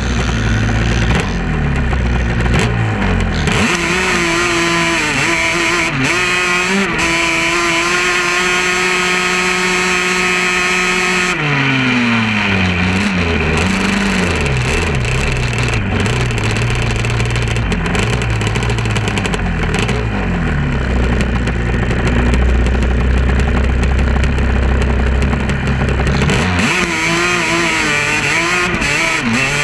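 Off-road vehicle engine held at high revs for several seconds while climbing a sand dune. It drops off about eleven seconds in and runs at lower, wavering revs, then revs hard again near the end, with a constant rushing noise over it.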